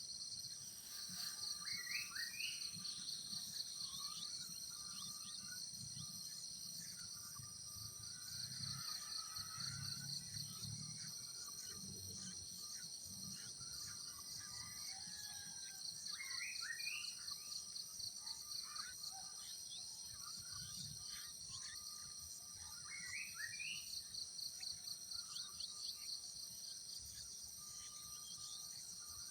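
Insects trilling steadily in a fast, high pulsing buzz, while birds give short rising chirps a few times.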